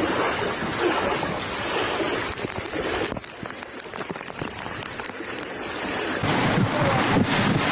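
Floodwater rushing and splashing, a steady rough noise that gets louder about six seconds in.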